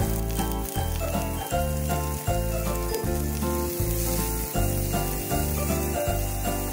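Background music with a steady beat and bass line, a pulse about every three-quarters of a second. Under it is a faint sizzle from onions, tomatoes and chillies frying in a pan.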